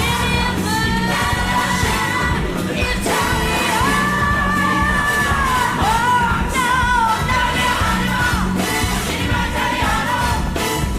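Pop song with a sung melody of long, bending notes over a steady beat, played as dance music.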